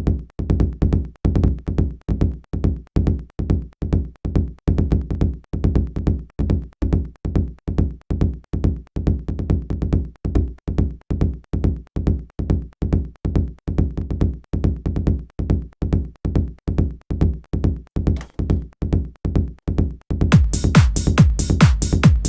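Electronic techno drum loop playing back from a DAW: a steady pattern of low, punchy drum hits, about two a second. About 20 seconds in, brighter, busier percussion such as hi-hats joins and the loop gets fuller.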